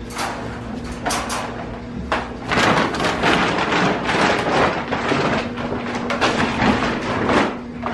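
Wire dog crate rattling and clattering as it is handled, in a brief burst about a second in and then a longer run of irregular metallic rattling and scraping that stops just before the end, over a faint steady low hum.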